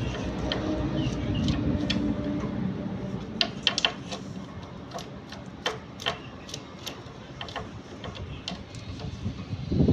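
Irregular sharp clicks and taps of small metal parts being handled, a few a second. They follow a few seconds of low scraping and rubbing, and there is a louder knock near the end.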